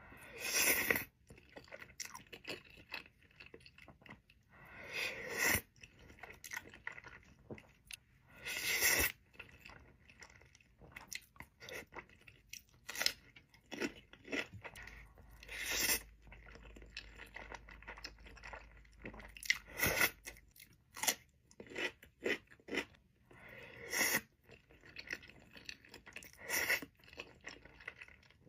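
Close-miked mukbang eating: a person chewing and biting food, with many small wet mouth clicks and a louder bite or crunch every few seconds.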